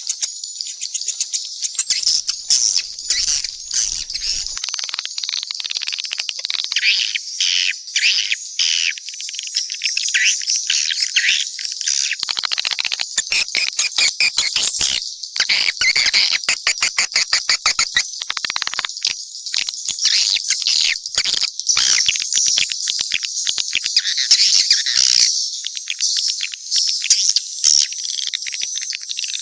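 Swiftlets twittering in a dense, unbroken chorus of high chirps laced with rapid clicking. It is a mixed swiftlet calling-sound track of the kind played in swiftlet houses to lure the birds in.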